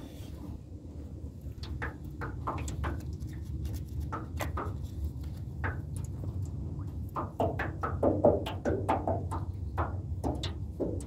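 Small waves slapping against the side of an aluminium boat hull in irregular hollow knocks, busier in the second half, over a steady low rumble of wind on the microphone.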